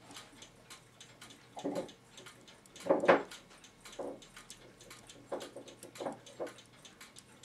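Brass clock movement being assembled by hand: light metallic clinks and knocks as the front plate is worked down over the wheel pivots, the loudest about three seconds in. A faint, steady, fast ticking runs underneath.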